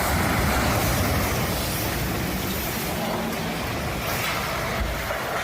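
A vehicle engine running, a steady rumble under a noisy hiss.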